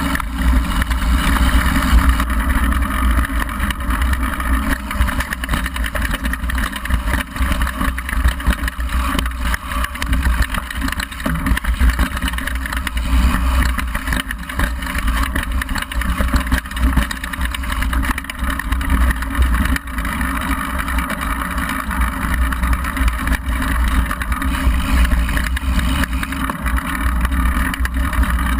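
Wind buffeting a GoPro on a downhill mountain bike ridden at speed, with the rumble of knobby tyres over gravel and dirt and frequent knocks and rattles from the bike as it hits the rough trail.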